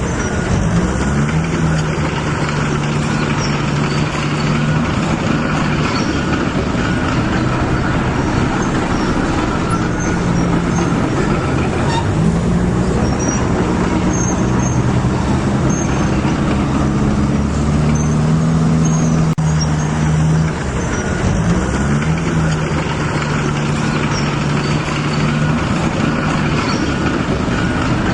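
Remote-control bulldozer running and working, a steady motor hum whose pitch rises and falls and briefly dips a few times as the load changes.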